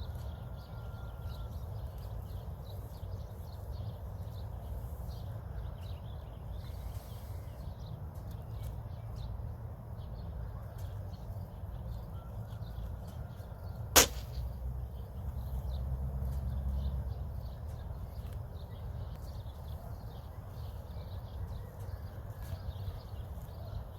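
A single sharp crack about midway through, over a steady low rumble.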